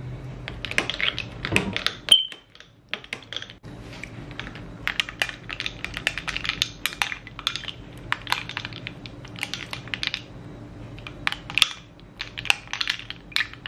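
Metal spoon stirring ice cubes and fruit in a glass goblet of milky fruit ice: repeated clinks of spoon against glass and ice, in irregular clusters, with one sharp ringing tap on the glass about two seconds in.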